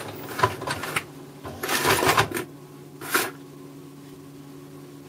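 Printer starting up, its mechanism whirring in short bursts: several in the first second, a longer one around two seconds in and a brief one a little after three seconds. A steady low hum runs underneath.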